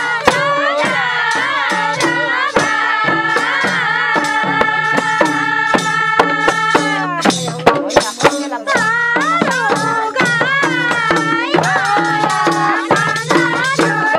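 Nepali Chutke folk song: voices singing the melody in long held and bending notes, over the steady strokes of a madal barrel hand drum and the jangle of small hand cymbals.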